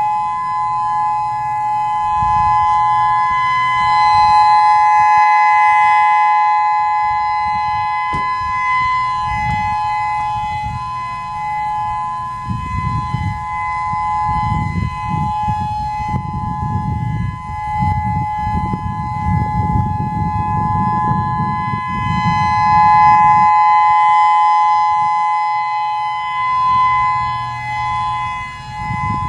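Federal Signal EOWS-612 electronic outdoor warning siren sounding its steady Alert signal: two steady tones held together without any rise or fall in pitch, slowly swelling and fading in loudness. A low rumble sits under it for a stretch in the middle.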